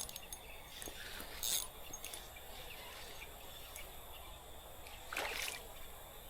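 Creek water running steadily, with two short splashes about a second and a half in and again near the end.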